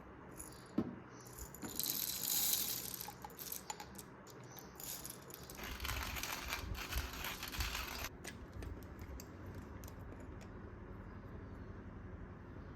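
Small hard objects rattling and clinking in two bursts, after a single sharp click, with a faint low hum coming in partway through.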